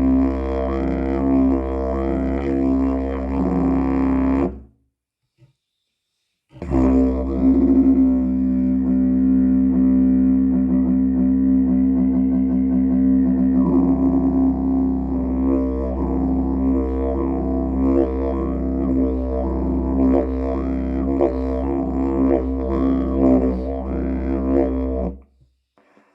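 Didgeridoo playing a steady low drone, with rhythmic sweeps in tone shaped by the player's mouth. It breaks off for about two seconds after roughly four and a half seconds, then resumes and plays on until just before the end.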